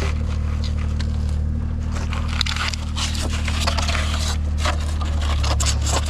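A steady low hum with irregular scraping and clicking over it.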